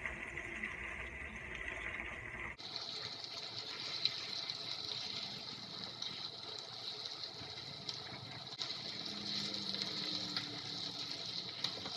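Chicken pieces sizzling in hot oil as they are fried in a pot: a steady hiss. The hiss changes abruptly to a brighter tone about two and a half seconds in.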